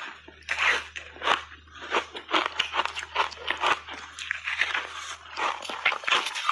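Close-miked crunching and chewing of Haoqi crunchy foam-button ice thickly coated in matcha powder: a rapid, irregular run of sharp crunches as the ice breaks between the teeth.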